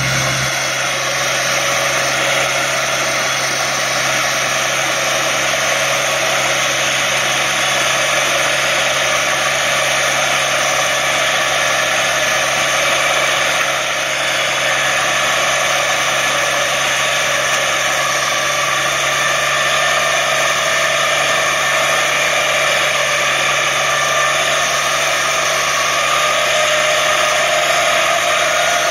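Tractor engine and rear-mounted DRM165 drum mower running steadily while cutting tall grass: a continuous mechanical whirring noise with a steady low tone beneath it.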